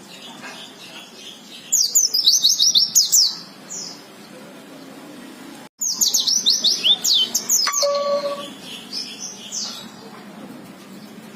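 Pleci (white-eye) singing: two runs of rapid, high, falling chirps, each lasting about two seconds, separated by a short break.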